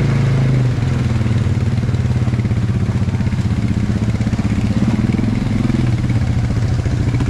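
ATV (quad bike) engine running at low speed while wading through a river, its pitch rising briefly and settling back about five seconds in.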